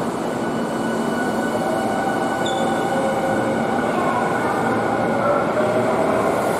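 Eight-car subway train pulling away from an underground platform and picking up speed. A steady rumble of wheels on rail carries several whining tones that climb slowly in pitch as it accelerates.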